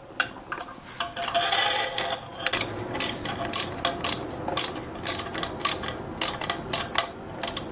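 Ratchet with a 1/2-inch socket on a swivel clicking in a string of sharp clicks, about two or three a second, as it snugs the lower carburetor mount nut, with metal clinks of the socket and tools before the clicking starts.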